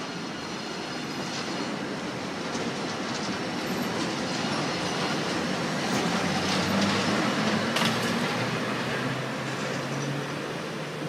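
SBB Cargo Re 620 (Re 6/6) six-axle electric locomotive passing close by. Its wheels rumble and click over the rail joints, loudest about seven or eight seconds in, and a low hum grows as it goes by.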